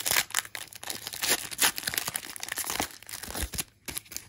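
Foil wrapper of a trading card pack being torn open and crinkled by hand, a dense crackling that eases off near the end.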